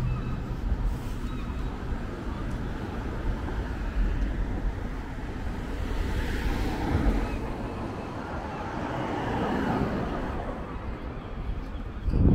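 City street traffic: cars passing on a downtown street, swelling twice through the middle as vehicles go by.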